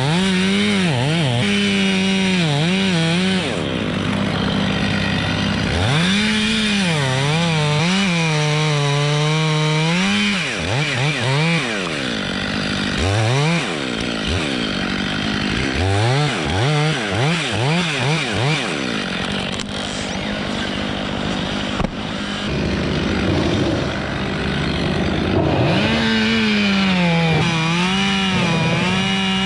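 Two-stroke chainsaw cutting wood. It runs at high revs in long pulls, and the pitch dips and recovers as the chain bites. Between cuts it gives quick throttle blips and settles lower for a while before revving back up into the cut.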